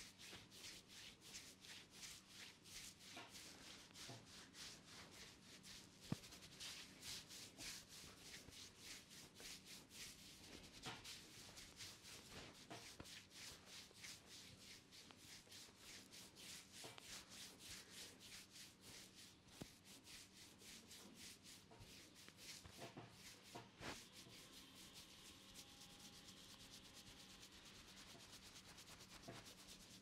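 Fingers rubbing and scrubbing through wet hair and scalp in a faint, quick, rhythmic head massage, several scratchy strokes a second. There is one sharp click about six seconds in, and near the end the strokes give way to a softer, steadier rub.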